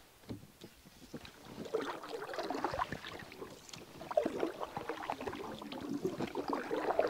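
Canoe paddle working through calm water, with irregular splashing and dripping off the blade. It starts faint and picks up about a second and a half in.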